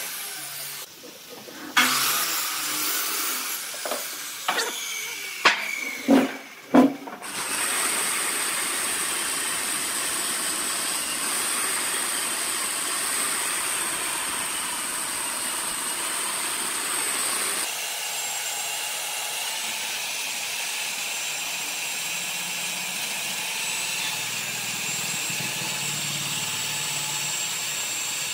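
A few sharp knocks and clatters, then a corded electric chainsaw running steadily as it rips lengthwise through a bark-covered log. Its sound shifts a little past the middle.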